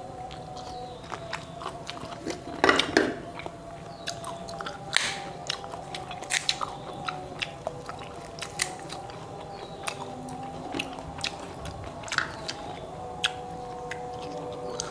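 Motoa fruit being eaten: thin shells cracked and peeled by hand in sharp, irregular snaps and crackles, mixed with chewing and mouth noises. The loudest crunch comes a little under three seconds in.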